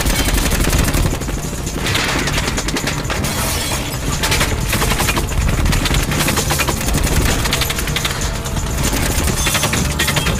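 Continuous automatic gunfire from two submachine guns fired together, a dense unbroken run of shots, with bullets striking and breaking up furniture and fittings.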